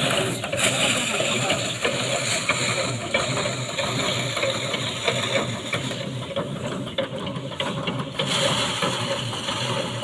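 Rice thresher's spinning drum rattling and clattering steadily as bundles of paddy stalks are held against it to strip off the grain.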